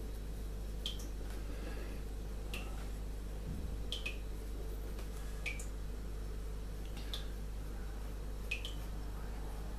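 Soft pencil strokes on paper under a steady low hum, broken by sharp little ticks about every second and a half, some of them in quick pairs.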